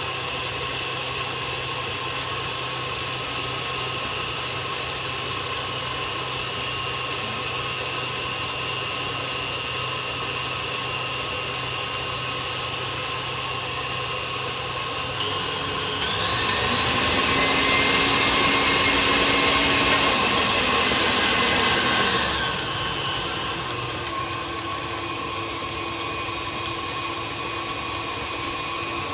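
Stand mixer motor running steadily as its wire whisk beats egg whites into an Italian meringue. About halfway through the motor is turned up, its whine rising in pitch and getting louder, then drops back to the lower speed about six seconds later.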